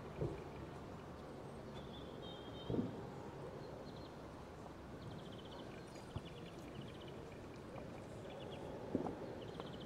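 Outdoor ambience: small birds chirping in short, repeated trills over a steady background rumble, with a few dull thumps.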